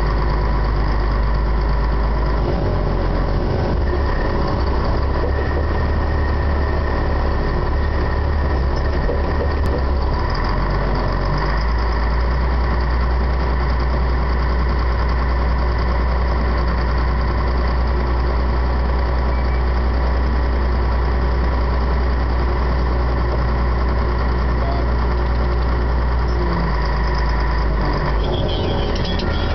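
Caterpillar 140G motor grader's six-cylinder diesel engine running steadily during finish grading, a constant loud drone whose low note shifts a few times.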